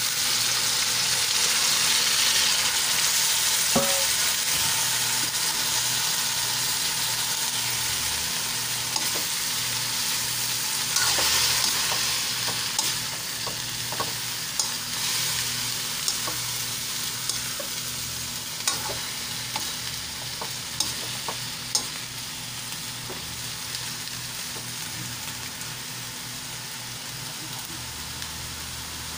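Cut string beans sizzling as they are sautéed in hot oil in a metal wok, with a ladle scraping and knocking against the pan now and then. The sizzle is loudest just after the beans go in and slowly dies down.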